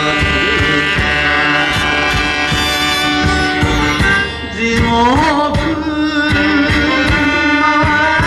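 A male singer performing an enka song, backed by a live band with guitars and drums. Long held notes, then a brief dip about four and a half seconds in before the voice slides up into a new phrase.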